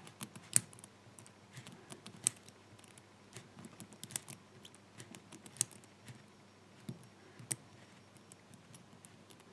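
Number wheels of a Lockwood combination padlock being turned by hand: irregular small clicks as the wheels step through their detents, with a few sharper clicks among them, while the wheels are felt for their gates to decode the combination.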